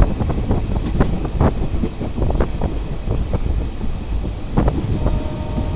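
Moving train heard from on board: a steady low rumble with irregular clattering and knocking, and wind on the microphone. A short faint steady tone sounds near the end.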